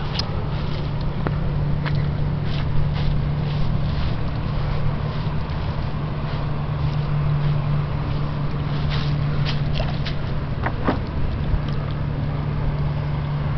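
Steady low drone of a passing cargo freighter's engine heard across the river, with scattered clicks and rustles from the handheld camera.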